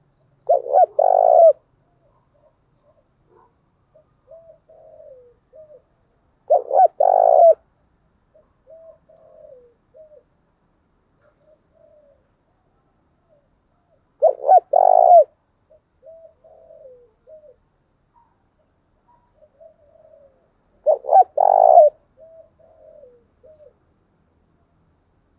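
Spotted dove cooing: four loud calling phrases about seven seconds apart, each followed by a string of soft short coos. It is a decoy recording of the calls used to set off other doves.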